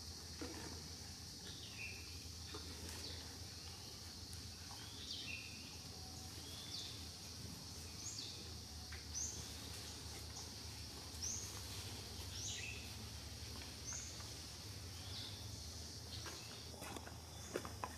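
Faint outdoor ambience: a bird gives short, high chirps, each falling in pitch, about one a second, over a steady low hum and a steady high hiss.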